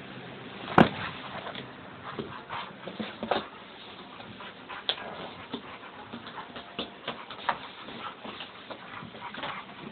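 A dog nosing and pawing at a cardboard box, giving irregular scrapes and rustles of cardboard, with one sharp click about a second in.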